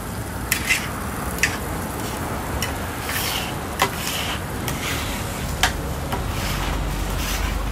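Food sizzling on a steel flat-top griddle, with a handful of sharp, irregular metal clicks and scrapes from a utensil working the griddle plate.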